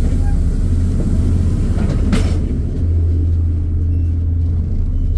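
Low steady rumble of a LiAZ 5292.67 city bus's YaMZ-53624 natural-gas engine idling at a stop, heard inside the passenger cabin. A brief hiss comes about two seconds in.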